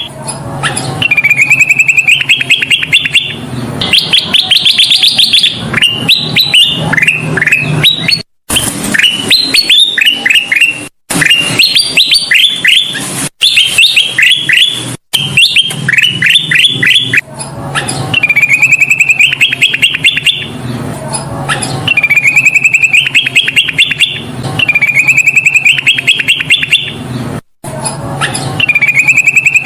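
Kutilang emas bulbul singing full and busy (gacor): repeated phrases of quick chirps and short falling whistled notes, with a faint low hum underneath. The song is cut by a few abrupt, brief silences where the recording is spliced.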